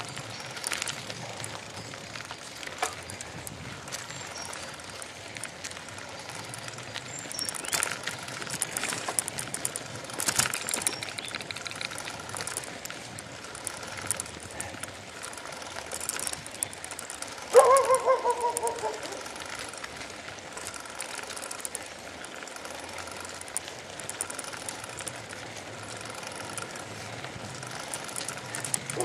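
Bicycle rattling and clattering over a rough dirt path, with a steady hiss of tyres and moving air. About two-thirds of the way through there is one short, loud squeak that falls in pitch.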